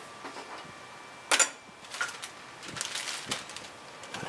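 Handling noises at a stopped wood lathe: one loud, sharp knock about a second and a half in, then several lighter clicks and knocks as things are moved about.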